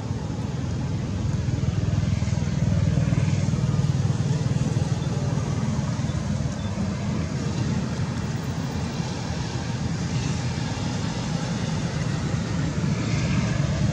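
Steady low rumble of background noise, with nothing standing out from it.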